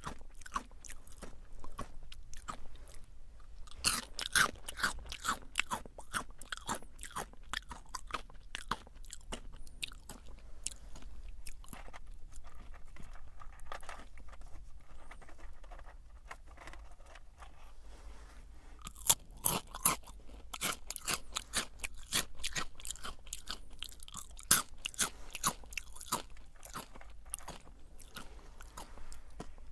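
Close-miked chewing of Jagariko crunchy potato snack sticks: continuous crisp crunching, with louder bites about four seconds in and again from about two-thirds of the way through.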